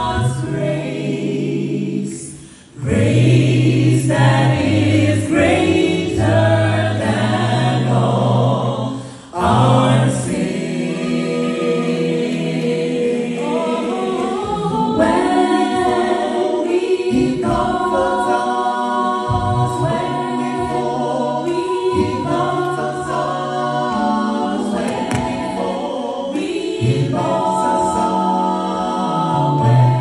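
A cappella vocal group of six singing a gospel song in close harmony into handheld microphones, with no instruments. The singing breaks off briefly twice, about three and nine seconds in.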